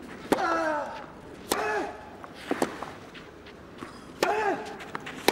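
Tennis rally on clay: a racket hitting the ball back and forth, a sharp crack every second or so, with a softer pair of hits in the middle. Three of the strikes are followed at once by a short grunt from the player.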